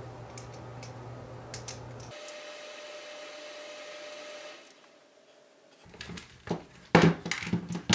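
A faint steady hum and whine, then near the end several sharp clicks and taps as small plastic and metal model-kit parts, screws and spacers, are handled.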